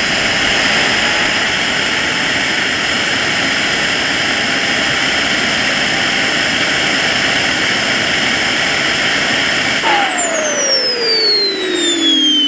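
KingTech K80 model jet turbine running steadily with a high whine, then shut down about ten seconds in: the whine falls steadily in pitch as the turbine spools down.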